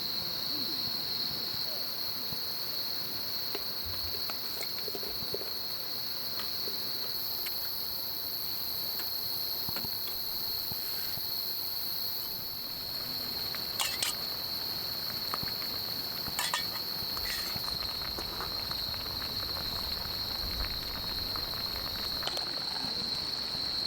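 Steady, unbroken high-pitched trilling of insects, with a few sharp clicks past the middle.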